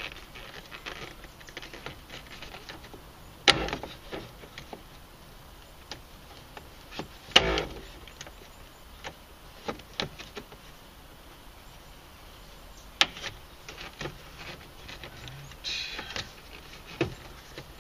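Plastic interior door handle of a Honda Accord door panel being hooked in and clipped into place: a few sharp clicks and snaps, the loudest about seven seconds in, with light handling rustle between them.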